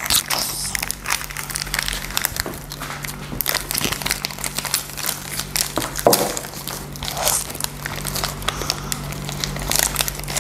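Plastic snack wrappers crinkling and crackling in irregular bursts as they are pulled open by hand, close to a clip-on microphone.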